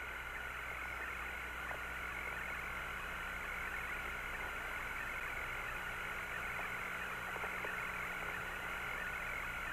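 Steady hiss of the Apollo 17 air-to-ground radio link, open between transmissions, with a faint steady high tone and a low hum under it.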